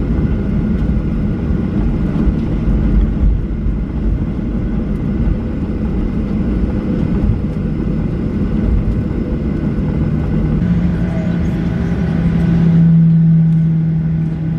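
Cabin noise inside a Boeing 737-800 taxiing after landing: a steady low rumble from its CFM56 engines at taxi power and the airflow. About ten seconds in, a low steady hum comes in and swells louder near the end.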